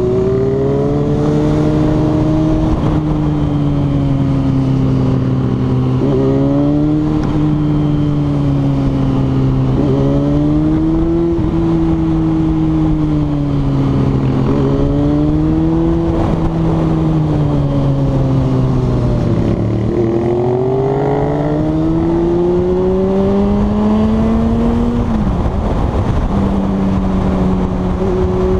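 Yamaha FZ6's inline-four engine heard from the rider's seat under way, its pitch climbing and dropping sharply again and again as it is accelerated and shifted up through the gears. A long climb about three-quarters through ends in a sudden drop to a steady drone.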